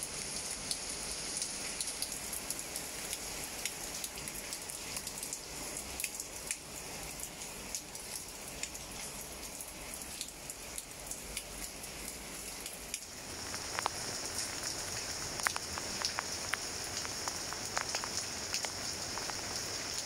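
Rain falling on leaves: a steady patter with many individual drops ticking. About two-thirds of the way through the sound changes, and the drop hits become louder and more distinct.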